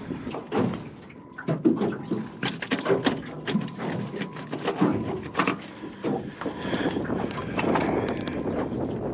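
Clatter of fishing gear being handled on an aluminium boat: a quick run of sharp clicks and knocks over steady wind and water noise.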